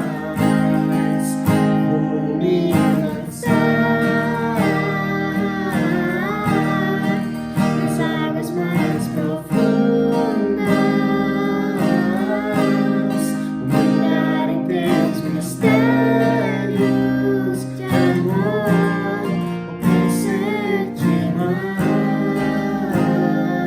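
Music: acoustic guitar playing over sustained low notes, with a gliding melody line above.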